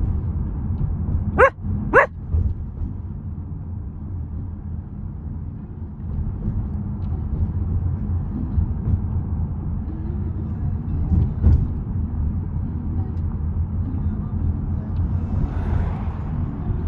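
Great Pyrenees puppy giving two short barks about half a second apart, about a second and a half in, over the steady low rumble of a car driving with the window open.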